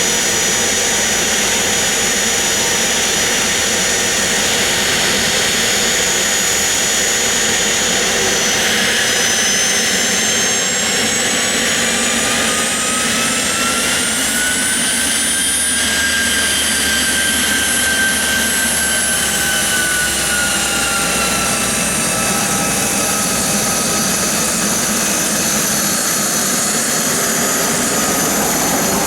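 Cessna 680 Citation Sovereign's twin Pratt & Whitney Canada PW306C turbofan engines running with a steady rush and high-pitched whines. Partway through, one whine rises in pitch for a few seconds and then slowly sinks back.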